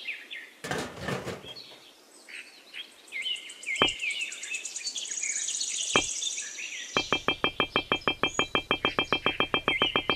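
Birds chirping with many short calls and a fast high trill, two sharp clicks, and from about seven seconds in an even pulsing tone at about ten pulses a second.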